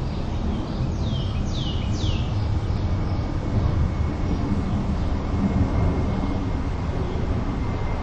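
Outdoor background ambience: a low, steady rumble, with three quick falling chirps about a second in and a faint steady high tone from about two seconds on.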